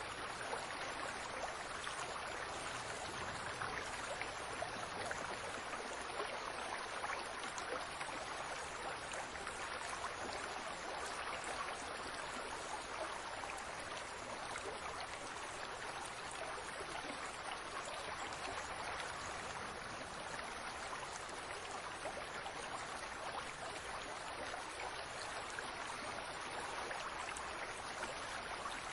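Water from a fountain splashing and running steadily, an even rush with many small droplet splashes.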